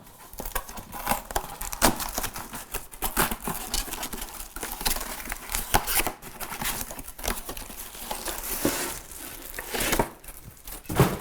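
Packaging wrap being torn and crinkled as a griddle pan is unwrapped, in a run of irregular rustles and crackles.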